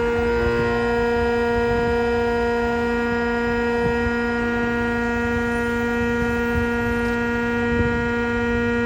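Key-cutting machine's electric motor running with a steady, even hum while a key is cut.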